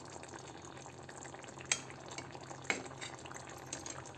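Metal spatula stirring a thick, wet potato-and-green-pea curry in a pan, with two sharp taps of the spatula against the pan about a second apart and a few lighter clicks near the end.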